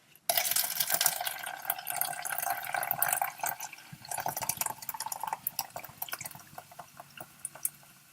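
Water running from a tap, as when filling a glass to drink. It starts suddenly just after the beginning and gradually fades away over the last few seconds, with scattered small clicks.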